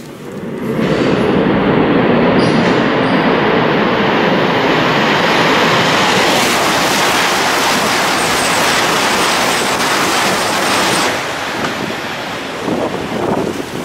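Tohoku Shinkansen high-speed train, led by a red-nosed E6-series Komachi set, coming out of a tunnel hood and running past at speed. A loud rush of air and rail noise builds about a second in, holds steady for some ten seconds and eases off near the end.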